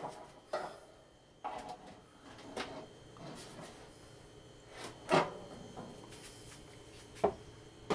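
Heavily loaded Tripp Lite 12U metal wall-mount rack enclosure being swung open on its hinges: several clunks and knocks with some rubbing, the loudest about five seconds in.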